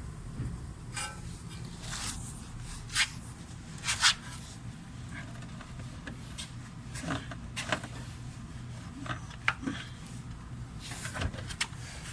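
Scattered clicks, knocks and light rattles of hands and tools working around a car's engine bay while searching for the crankshaft position sensor, over a steady low hum. The loudest knocks come about three and four seconds in.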